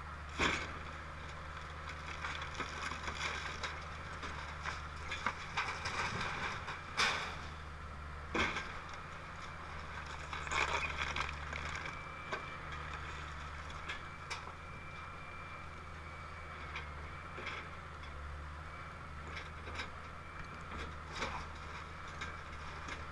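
Link-Belt excavator's diesel engine running steadily while its bucket tears into a wood-frame house, with sharp cracks and crashes of breaking timber and falling debris. The loudest crashes come about half a second in and around seven, eight and ten seconds in.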